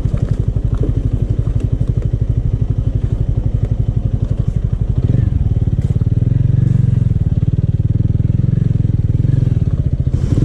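Scooter engine running under load, with a fast, even pulsing; about five seconds in it gets louder as the throttle is opened further.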